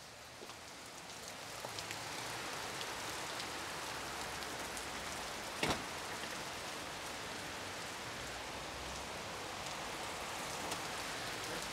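Steady rain, fading in over the first couple of seconds, with scattered drop ticks and one sharper tap about six seconds in.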